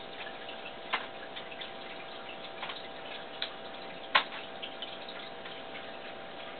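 Quiet room tone: a steady hiss with a faint hum, broken by scattered small ticks and two sharper clicks, about a second in and about four seconds in, the second the louder.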